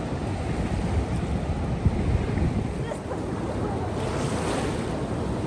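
Ocean surf washing onto a sandy beach, a steady rush of water. Wind buffets the microphone with a gusty low rumble, and the wash of surf grows a little hissier about four seconds in.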